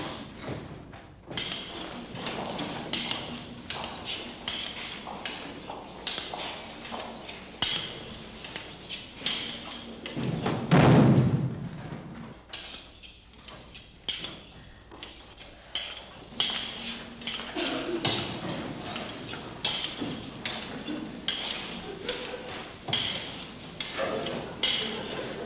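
Irregular knocking and clattering, sharp and close together, with one loud low thud about eleven seconds in.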